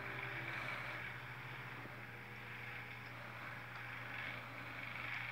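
Steady background hum with an even hiss, with no distinct event standing out.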